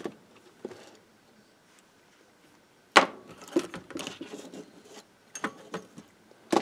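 Irregular clicks, clinks and light rattles of hands and tools handling the metal chassis and small parts of a tube reel-to-reel tape recorder being taken apart, with a sharp knock about three seconds in.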